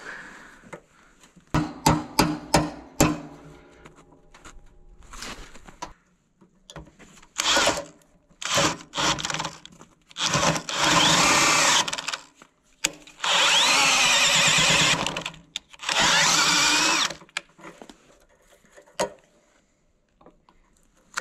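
DeWalt cordless drill boring into the steel marker mount on a snow plow blade, running in about five bursts of one to two seconds each. A quick run of sharp metal knocks comes before the drilling, about two seconds in.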